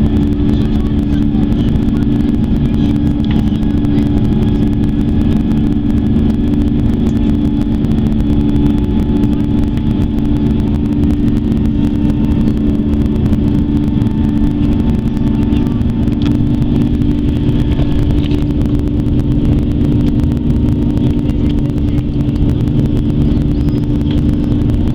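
Steady cabin drone of an Airbus A340-300 in flight, its four CFM56 turbofan engines running with a rush of air and a few low hum tones held steady, and faint ticks now and then.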